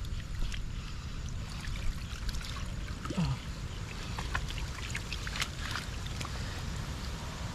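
Shallow muddy water splashing and trickling as fish are scooped by hand in a field pool: a run of short sharp splashes and ticks over a steady low rumble, with one brief falling sound about three seconds in.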